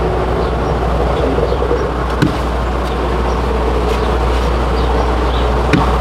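Honeybees buzzing in a steady, wavering drone around an opened hive, over a steady low hum. Two sharp taps, about two seconds in and again near the end, as bee-covered comb is knocked to shake the bees off.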